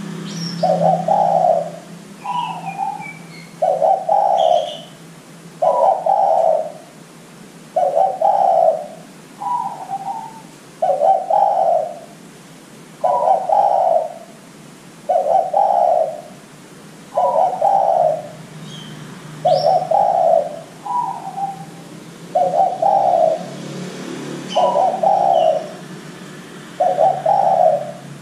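Spotted dove (derkuku) cooing over and over, a low coo about every one and a half to two seconds, some followed by a short higher note. A few faint high chirps from small birds come in between.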